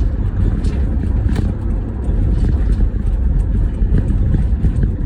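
Toyota HiAce KDH200 van driving on the road, a steady rumble of road and engine noise heard inside the cabin, on the test drive after its rear hub and hub bearing were replaced.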